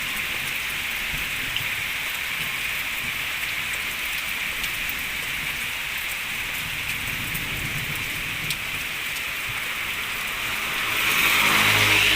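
Steady rain, not heavy, falling and pattering on surfaces, growing louder for a second or two near the end.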